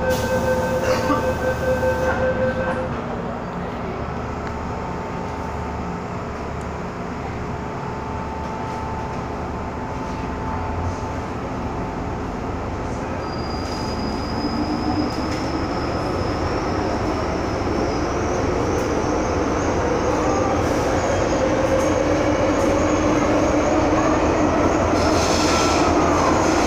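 Inside an MTR M-Train carriage running through a tunnel: a steady rumble of wheels on rail that grows louder through the second half. Rising whines join it from about halfway, and the wheels squeal near the end.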